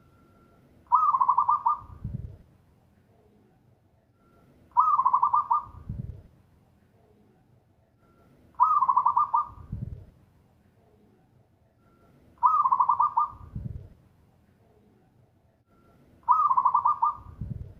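Zebra dove singing its rapid, trilled cooing phrase five times, about every four seconds, each phrase closing with a deeper low note.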